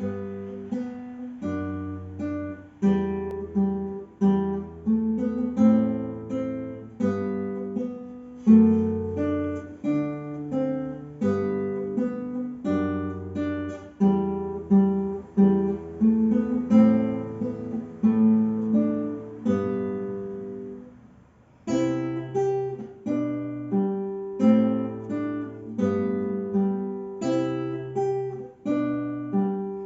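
Solo classical guitar playing a slow, simple piece: a plucked melody over low bass notes, each note ringing and fading. There is a short pause between phrases about two-thirds of the way through.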